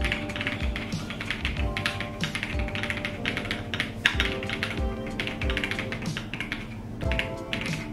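Fast, continuous typing on a Monsgeek M1 QMK, a gasket-mounted aluminium mechanical keyboard: a dense run of key clacks. Background music plays under it.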